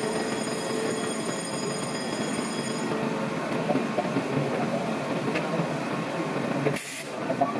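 Panama Canal lock locomotive ("mule") running along its rail track beside the lock: a steady, dense mechanical clatter with some wheel squeal. There is a brief break near the end.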